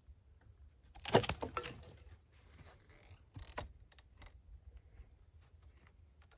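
A dense run of sharp crackling clicks about a second in, lasting under a second, a shorter burst about three and a half seconds in, then a few scattered single clicks.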